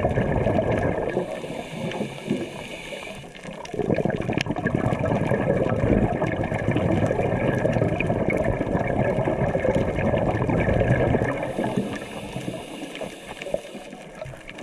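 Underwater noise picked up through a GoPro's housing: a dense rumbling, bubbling rush that drops twice, for a couple of seconds each time, to a quieter hiss.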